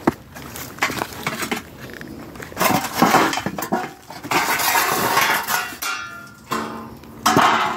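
Broken concrete and hard debris in a rubble heap clinking, scraping and clattering as it is shifted by hand, in several rough bursts with sharp knocks between them.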